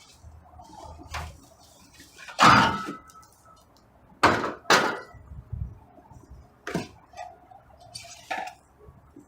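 Hard objects being handled: a series of separate knocks and clanks with short ringing tails, the loudest about two and a half seconds in and two more in quick succession about four and a half seconds in.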